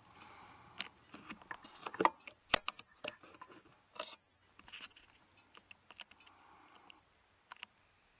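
Close handling noises: a string of sharp clicks and ticks mixed with short stretches of rustling and scraping, the loudest clicks about two and two and a half seconds in.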